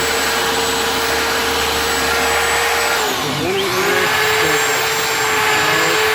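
BLACK+DECKER 7-amp 3x21 in belt sander with an 80-grit belt running with a steady whine. About three seconds in, its pitch dips briefly and then comes back up to speed.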